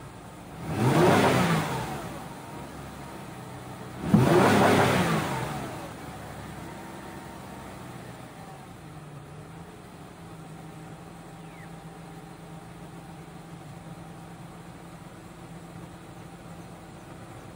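Ford Escape V6 engine revved twice, each rev climbing and falling back over about two seconds, then idling steadily.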